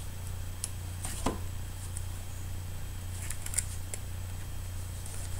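Faint handling sounds of paper card-making: a few soft clicks and rustles as cardstock pieces and a glue-dot dispenser are handled, with a small cluster about three and a half seconds in, over a steady low hum.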